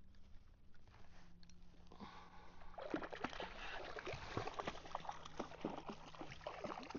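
Water splashing and sloshing at the kayak's side, breaking into a rapid run of splashes about three seconds in: a hooked jack crevalle thrashing at the surface as it is brought to the boat.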